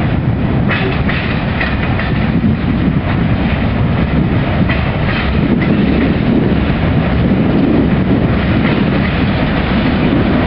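Freight train of covered hopper cars rolling past at close range: a steady, loud low rumble, with irregular clicks as the wheels pass over rail joints.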